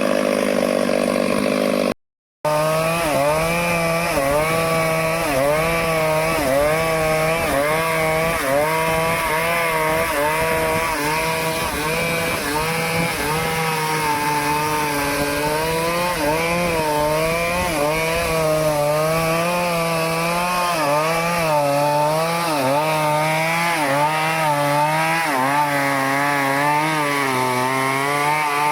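Stihl two-stroke chainsaw running under load while cutting teak wood, its engine pitch repeatedly dipping and recovering as the chain bites. The sound cuts out completely for about half a second near the start.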